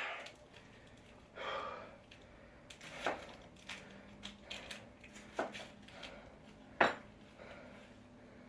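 A short breath-like rush, then a run of sharp clicks and knocks, the loudest about seven seconds in.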